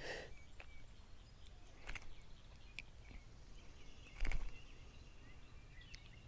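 Quiet outdoor background with faint bird chirps and a few small clicks and knocks from a crappie being unhooked by hand. The loudest click comes just after four seconds in.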